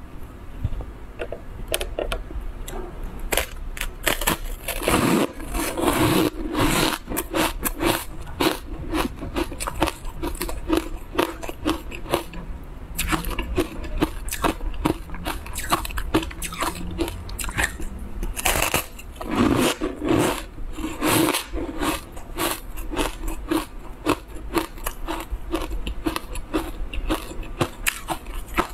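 Close-miked eating-show sounds: crunching, scraping and crackling from a green powder-coated food block as it is handled and bitten. The sharp clicks are dense throughout and loudest about five seconds in and again around twenty seconds in.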